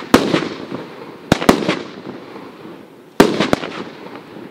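A 16-shot, 200-gram consumer fireworks cake firing: five sharp bangs, the last four in two close pairs, each dying away in a rumbling echo.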